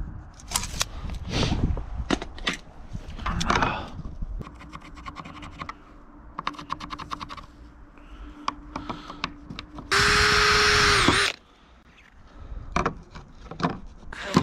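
Clicks and rustles of a tape measure, pencil and gloved hands. About ten seconds in, a cordless impact driver runs for just over a second, driving a screw to fix a steel gutter hook to the fascia board, and slows as it stops.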